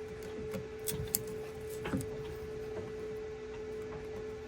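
A few light clicks and taps from handling small latch hardware and screws, over a steady background hum.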